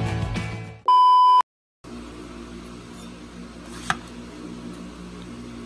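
Music fades out, then a single loud steady beep about half a second long, cut off by a moment of dead silence. Quiet room tone with a low hum follows, with one sharp click near four seconds.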